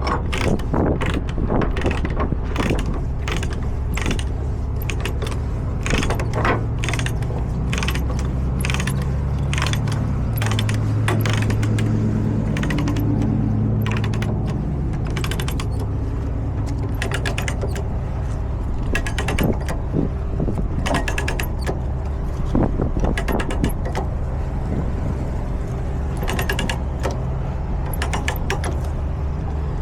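Ratchet chain binder being cranked tight to tension a tie-down chain, clicking in irregular runs with the chain links clinking. A steady low engine hum runs underneath and swells for a few seconds midway.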